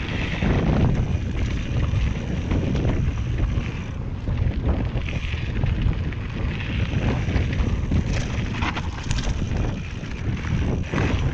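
Wind buffeting the microphone of a GoPro Hero 6 on a mountain bike riding fast along a singletrack trail. Under it run the rumble of the tyres on the dirt and occasional short knocks as the bike hits bumps.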